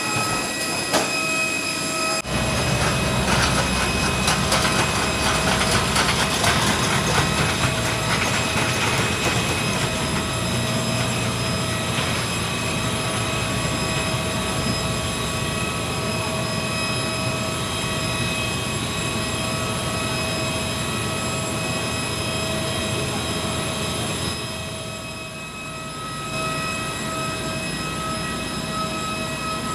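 Jet airliner heard from inside the passenger cabin: the engines run with a steady whine. About two seconds in, a low rumble and rattling rise suddenly and stay strong for several seconds. They then ease into a steady drone.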